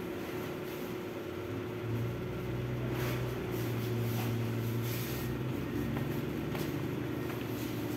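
A steady low engine-like hum that swells about two seconds in and eases off after about five seconds, with a few light rustles of nylon tent fly fabric being pulled over the tent.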